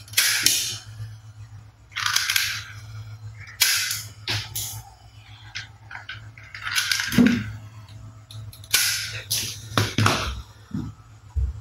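Toy gun shooting sounds: about seven separate sharp bursts, each under a second, at uneven intervals, over a low steady hum.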